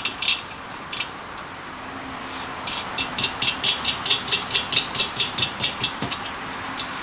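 Nut and bolt being threaded and turned by hand to fasten a 2N3055 TO-3 transistor to a finned metal heatsink. A few light metallic clicks come first, then a quick run of clicks, about five a second, for some three seconds.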